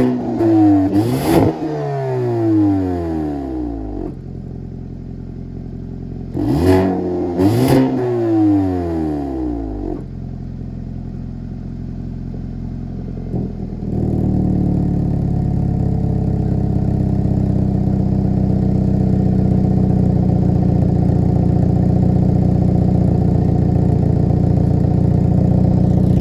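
2023 Hyundai Elantra N's turbocharged four-cylinder exhaust, revved twice from idle, near the start and about six seconds in. Each rev carries sharp pops and falls away slowly back to idle. About fourteen seconds in the idle steps up to a steadier, louder drone that holds to the end.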